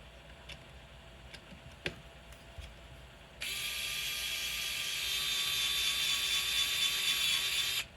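A few light clicks of small parts being handled. Then, about three and a half seconds in, a small electric screwdriver starts and runs steadily for about four seconds, driving a small machine screw, before it stops suddenly.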